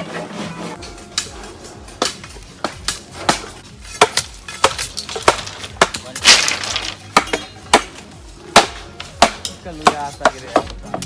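A series of sharp striking blows, roughly one or two a second and a little uneven, with a short noisy rustle about six seconds in.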